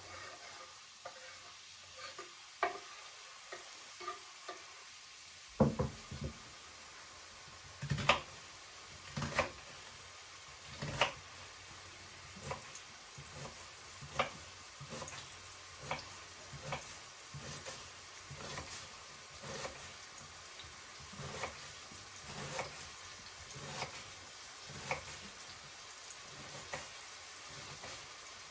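Food sizzling in a frying pan, with a utensil stirring it. From about five seconds in, the utensil knocks and scrapes against the pan about once a second, loudest in the first few strokes.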